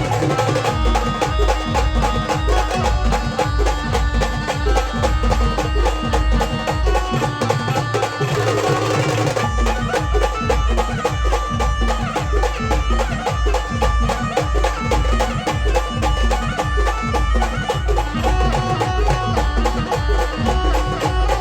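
Instrumental folk band music with a steady, heavy bass-drum beat and busy percussion under the melody. The beat drops out for a couple of seconds about seven seconds in and comes back at nine and a half.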